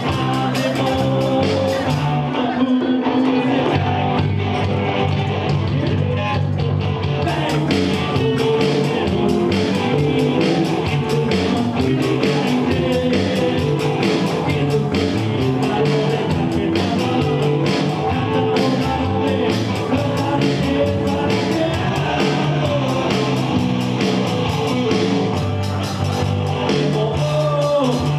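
Live band playing an upbeat rock song with electric guitar and singing.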